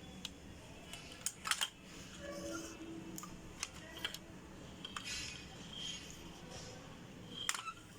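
A string of scattered sharp clicks, about eight in all, two of them in a quick pair about a second and a half in, over a faint steady low hum.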